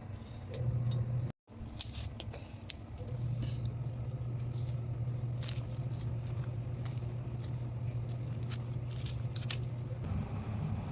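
A steady low hum with scattered light clicks and clinks over it, broken by a brief dropout about a second and a half in.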